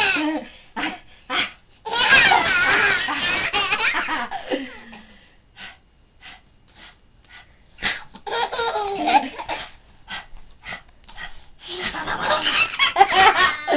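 Baby laughing hard in bursts while being tickled: a long burst of laughter about two seconds in, another just past the middle, and a loud stretch near the end, with short gasps in between.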